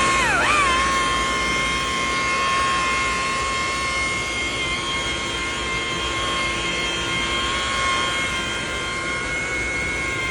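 Electric palm sander running with a steady high whine. Its pitch dips briefly about half a second in and recovers, then falls away at the end as the motor is switched off and winds down.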